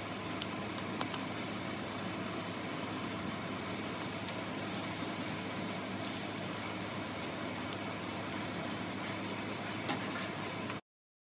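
Steady bubbling and sizzling of tomato sauce boiling in a pan on the stove, with a few light clicks. It cuts off abruptly shortly before the end.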